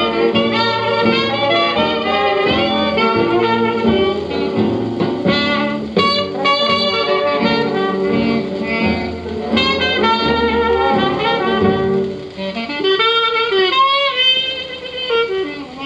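Early New Orleans jazz played from a 78 rpm record on a Bogen VP-20 tube record player: a saxophone leads with bending, sliding notes over brass and rhythm, with the narrow, muffled top end of an old recording.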